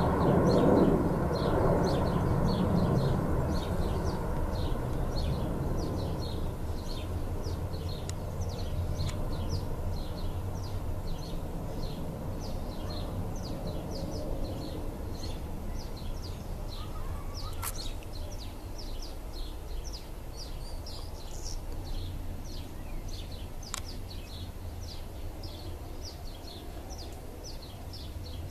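Low jet rumble of the Airbus Beluga XL's twin Rolls-Royce Trent 700 engines, fading slowly as the aircraft climbs away. A bird chirps over it, short calls about twice a second.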